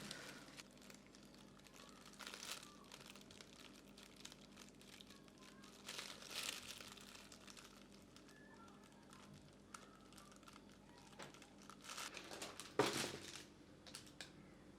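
Faint crinkling and rustling of something being handled, with scattered light clicks and a sharper knock near the end.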